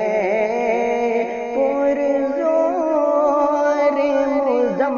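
A voice singing an Urdu nazm, here drawing out a wordless melodic passage on long, wavering held notes.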